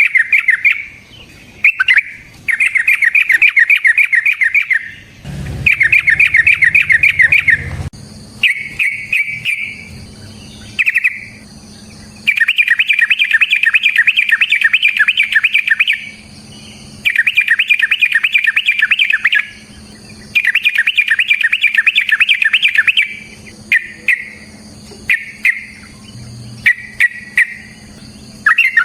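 A yellow-vented bulbul (trucukan) sings its fast rolling 'ropel' chatter: rapid runs of quick repeated notes in bursts of one to four seconds, with short pauses between them. A faint steady hum sits underneath.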